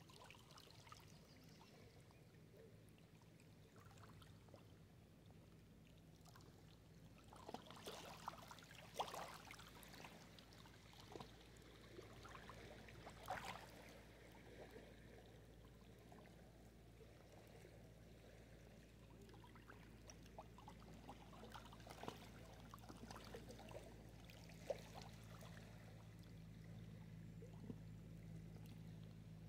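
Small lake waves lapping faintly against shoreline rocks, with a few sharper splashes now and then, most of them a third of the way in.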